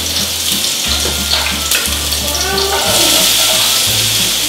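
Onion frying in oil in a pan, sizzling steadily as it is stirred. The sizzle grows a little louder about three seconds in.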